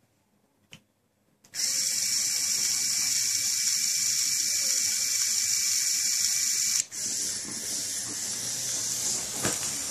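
Small Lego Technic electric motor whirring steadily as it drives the walker's gear train, starting about a second and a half in. It cuts out for a moment about seven seconds in and starts again.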